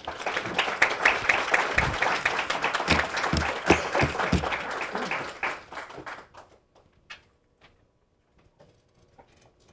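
Audience applause with many hands clapping, starting abruptly and dying away after about six seconds, followed by a few faint knocks.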